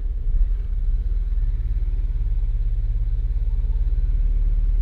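2018 Ford Explorer's 2.3-litre turbocharged engine idling, heard from inside the cabin as a steady low drone with a fast pulsing. The idle is rough enough to shake the car, a fault the owner has not cured with new spark plugs, engine and transmission mounts, air filter and transmission fluid.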